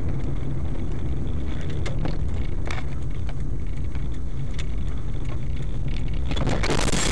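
Steady low rumble of a car driving, heard from inside the vehicle, with a few sharp clicks. About six seconds in, a loud harsh noise breaks in.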